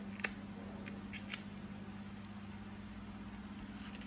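A few small clicks and taps from a mascara tube and its packaging being handled and opened, the sharpest about a quarter-second in and another just over a second in, over a steady low hum.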